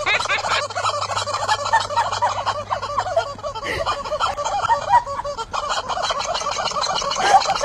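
Rubber squeaky chicken toy squawking over and over in quick, unbroken squeaks as a horse squeezes it in its mouth.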